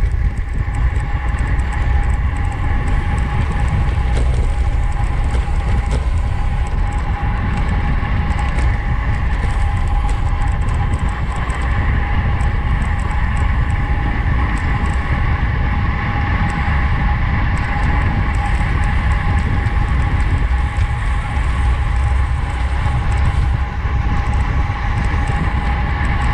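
Wind rushing over the microphone of a camera riding with a bicycle at race speed: a loud, steady rumble with a constant high whine running through it.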